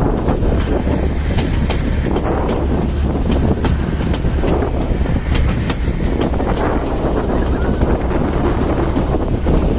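Kangra Valley Railway narrow-gauge train running, heard from aboard: a steady rumble with irregular sharp clicks of the wheels over the rail joints. A faint thin high whine rises near the end.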